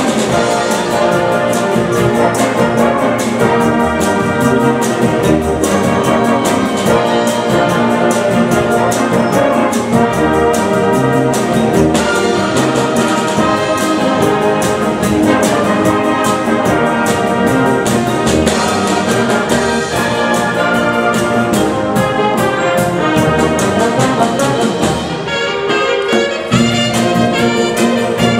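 A full concert wind band playing a 1960s pop medley arrangement. Brass leads over woodwinds, with a steady drum-kit beat. The band eases off briefly near the end before building again.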